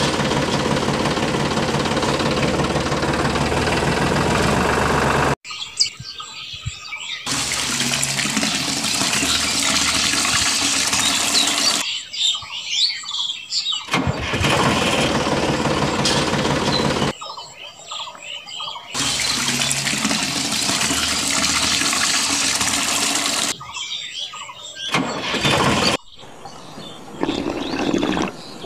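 Small motor of a miniature toy tractor running with a steady hum. It cuts off abruptly about five seconds in, then starts and stops several times, with quieter gaps of scattered small clicks between the runs.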